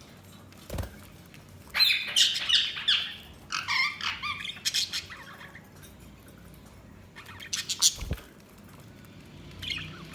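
Budgerigars chirping and squawking in quick warbling bouts, loudest about two seconds in and again just before eight seconds. Two short low thumps are heard, one early on and one around eight seconds.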